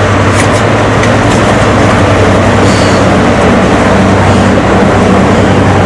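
The twin Napier Deltic two-stroke diesel engines of a Class 55 Deltic locomotive running loudly with a steady note as the locomotive comes slowly up alongside.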